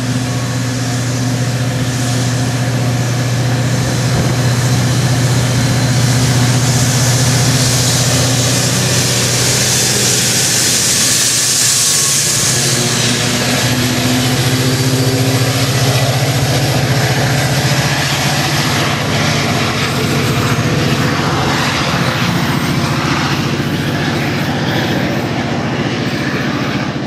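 Metra commuter train passing: bilevel coaches roll by over a steady drone from the diesel locomotive. A hiss swells in the middle, the drone's pitch changes as the locomotive goes past about halfway through, and the sound then recedes.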